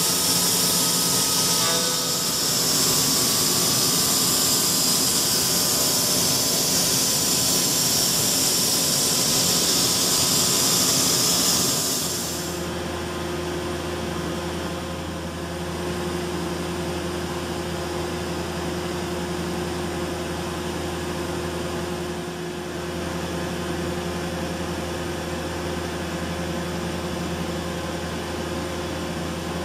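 CNC micro milling machine cutting: a steady high hiss from the spindle and tool at work, with a faint whine, which stops abruptly about twelve seconds in. A steadier, quieter machine hum carries on after that.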